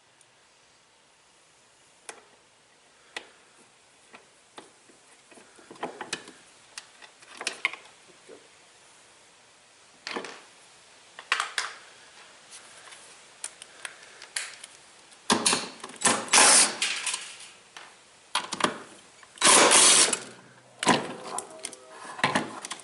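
Hand tools working on washing-machine parts: scattered clicks and taps, then louder scraping and rattling bursts about two-thirds of the way through and again near the end.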